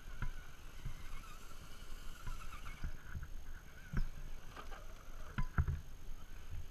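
Radio-controlled rock crawler's electric motor and gears whining unevenly as it climbs over rock, with sharp knocks of its tyres and chassis against the stone, the loudest about four seconds in and a pair about five and a half seconds in.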